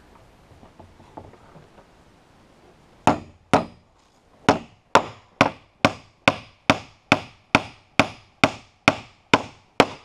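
Claw hammer driving a 16-penny nail through a pre-drilled dry alder batten into wooden roof boards, setting the batten. A few quiet seconds of faint handling, then two blows, a short pause, and a steady run of sharp strikes at about two a second.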